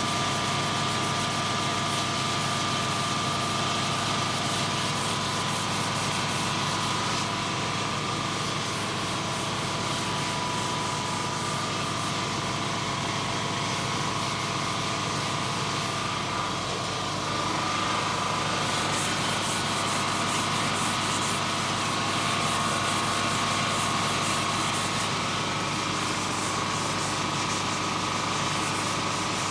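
Sandpaper rubbing over primer on a car body panel, a continuous scratchy sanding, with a steady high whine underneath.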